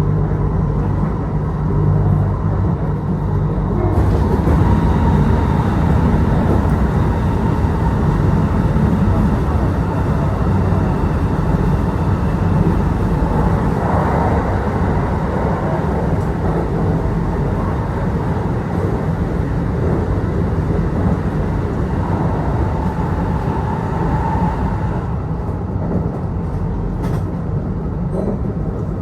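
Kintetsu Osaka Line local train running between stations, heard from inside the passenger car: a steady rumble of wheels on rail. The noise grows louder and hissier about four seconds in and eases again near the end.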